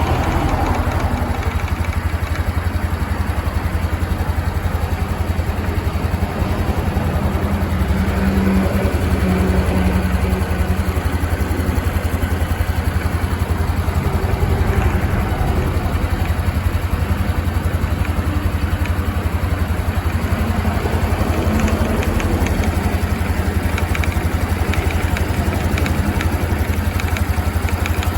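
Honda CT125 Hunter Cub's single-cylinder engine idling steadily, with an abnormal noise in its running.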